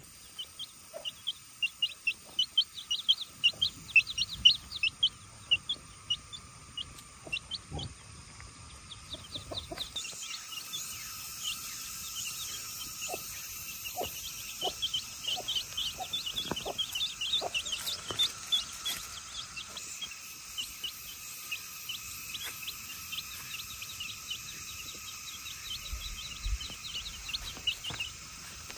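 Baby chicks peeping: a rapid run of short, high cheeps.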